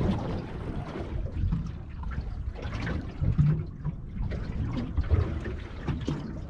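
Water lapping and sloshing against the hull of a small aluminium boat drifting at sea, in an uneven rhythm with a few light knocks.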